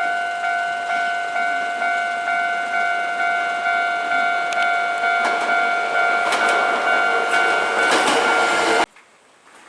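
Japanese level-crossing warning bell ringing its electronic clang about twice a second, while a Hankyu Senri Line train comes through the crossing from about halfway in, its wheels clacking over the rail joints and growing louder. Bell and train cut off suddenly near the end.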